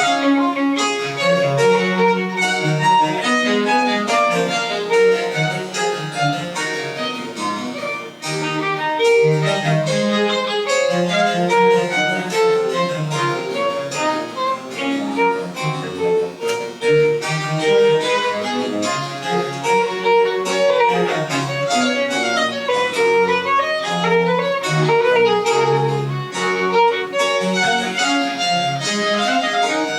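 French Baroque chamber music played live: a violin carries the melody over a lower bowed-string bass line, with a brief break between phrases about eight seconds in.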